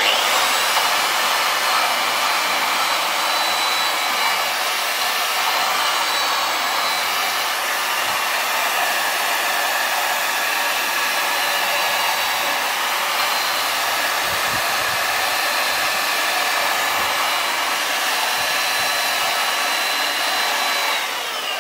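Handheld electric sander running steadily against the end of a timber piece, rounding a square end into a curve. It stops near the end.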